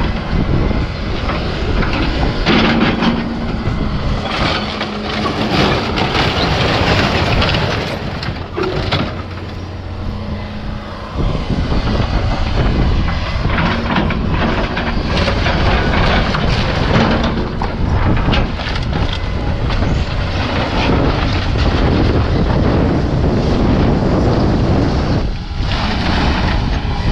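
Heavy equipment engine running steadily under load while an old barn's timbers and siding crack, crunch and clatter as it is torn down.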